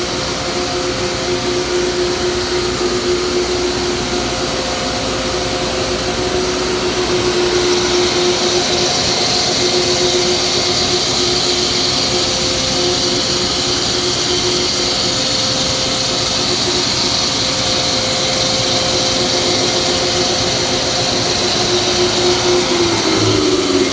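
Atlas Copco GA15 20 hp rotary screw air compressor running, a steady hum under a hiss. About eight seconds in the high hiss grows louder, and near the end the hum begins to fall in pitch.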